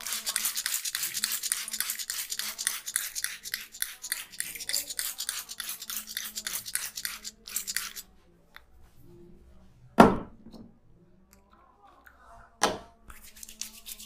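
Hands rubbing and tapping briskly on the head and hair during a head massage, a rapid scratchy rhythm of about six strokes a second that stops after about eight seconds. Then come two loud sharp sounds about two and a half seconds apart.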